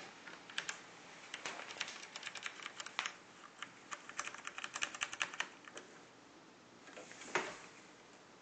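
Keys of a Corsair Vengeance K90 keyboard with Cherry MX Red mechanical switches being pressed, a rapid, irregular run of keystrokes lasting about five seconds, followed by a single duller knock near the end.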